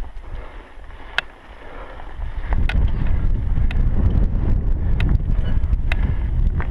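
Wind rumbling on the microphone of a camera on a mountain bike climbing a dirt track, growing loud about two and a half seconds in, with sharp clicks about once a second.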